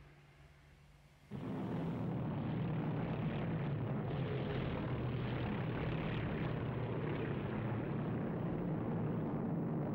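Propeller bombers' piston engines droning steadily in flight, cutting in abruptly about a second in after near quiet.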